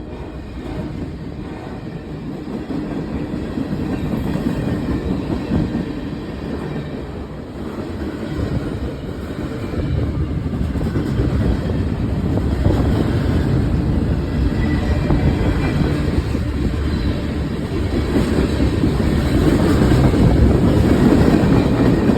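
CSX manifest freight train's cars rolling past: a steady rumble with clattering wheels over the rails, growing louder toward the end.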